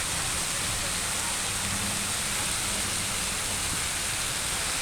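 Swann Memorial Fountain's water jets splashing into the basin, a steady rushing hiss.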